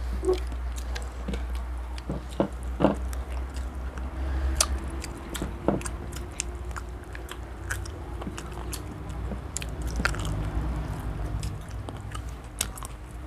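People chewing and eating, with many scattered short mouth clicks and crunches over a steady low rumble.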